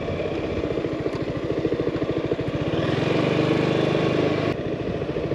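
Yamaha maxi-scooter's engine running under way with an even, rapid pulsing. It picks up pace and grows louder toward the middle, then eases off suddenly about four and a half seconds in.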